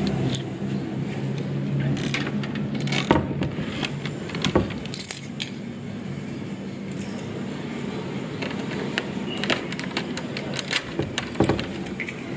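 Irregular clinking and jingling of small metal objects over a steady low engine-like hum.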